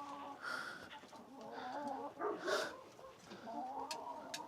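Domestic hens clucking and murmuring in the henhouse, several short wavering calls overlapping, with a few sharp clicks.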